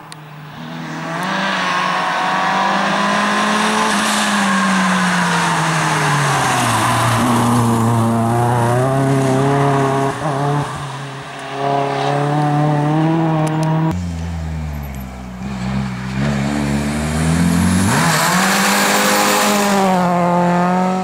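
Opel Astra turbo rally car's engine driven hard, its pitch climbing and dropping again and again through gear changes and lifts off the throttle. About fourteen seconds in it falls low for a few seconds with a deep rumble, then climbs steeply again near the end.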